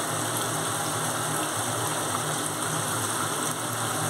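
Tomato and spice masala sizzling and bubbling steadily as it fries down in a pan on a gas burner.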